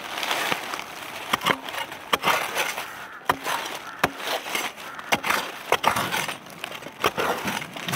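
A metal digging blade scraping and jabbing into dry, crumbly soil and roots, with about ten sharp irregular strikes over a steady scratching of loose dirt, as a hole is dug out by hand to get at buried scarab beetles.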